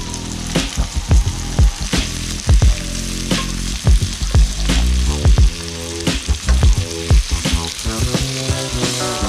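Pieces of kahawai fish frying in butter and oil in a pan, a steady sizzle. Background music with a steady beat plays over it.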